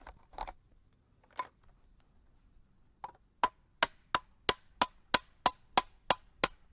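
Hammer blows driving garden-bed stacking stakes into the ground: a few scattered knocks, then from about three and a half seconds in a steady run of about three strikes a second.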